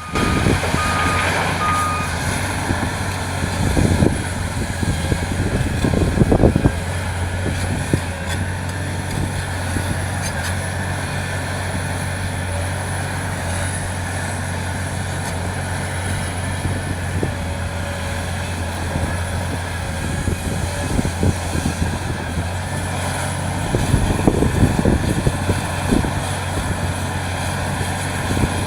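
Heavy earthmoving machinery with large diesel engines running steadily, from an excavator loading dump trucks. A truck's reversing alarm beeps during the first two seconds. The engines surge louder with clatter about four and six seconds in, and again near the end.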